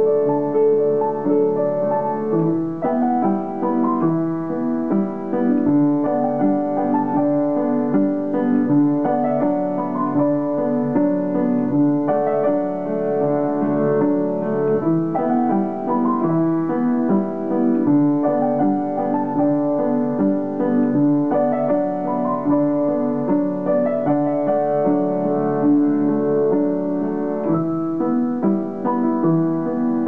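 Solo piano music: a piece of steadily flowing notes and chords at an even volume.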